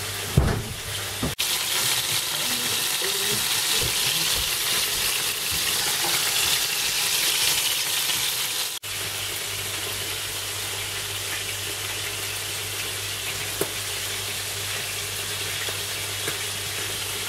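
For most of the first half, duck pieces and chopped vegetables sizzle in hot fat in frying pans while a spatula stirs them, a loud, even hiss. About a second in, and again about nine seconds in, the sound switches to a steady hum with a softer hiss of bubbling water, typical of an aquarium air pump and aerator.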